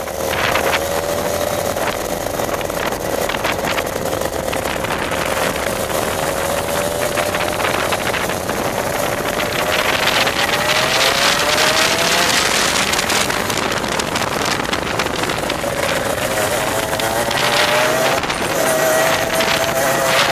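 Onboard sound of a racing kart's 125cc two-stroke TaG engine at racing speed. Its pitch climbs down each straight and falls back for the corners, with a sharp drop about eighteen seconds in before it climbs again.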